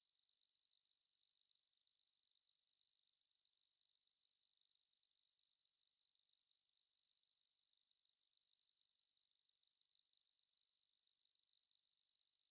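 A steady, high-pitched electronic sine tone, unchanging in pitch and loudness, with nothing else under it. It is a simulation of the ringing heard with tinnitus.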